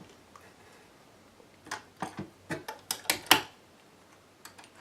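Several irregular sharp clicks and knocks from hands working at a vintage Singer Touch and Sew sewing machine, bunched together in the middle, the loudest near the end of the group; the machine itself is not running.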